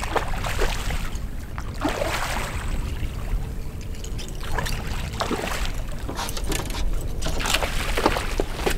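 Wind and water lapping against a small boat, with scattered sharp clicks and splashes as a hooked bull redfish is fought on rod and reel; the fish thrashes at the surface near the end.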